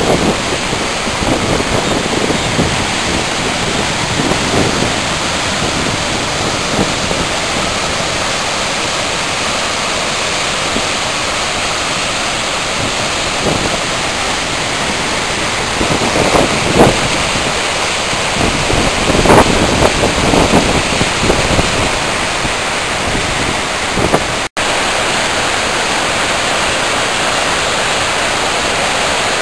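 Floodwater rushing and churning over a waterfall and dam, a loud, steady wash of white-water noise. It has a few louder surges midway and breaks off for an instant about 24 seconds in, then runs steadier.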